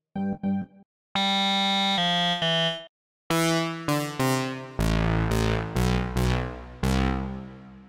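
Arturia Analog Lab V software synthesizer presets played on a keyboard. A few short notes of the "Bontempis" organ preset come first, then two held bright chords. Then the "Boogie Lead" preset plays a line of struck notes that ring and fade, with a deep bass coming in a little after halfway.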